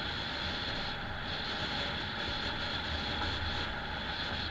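A car driving: steady road and engine rumble with wind hiss, unchanging throughout.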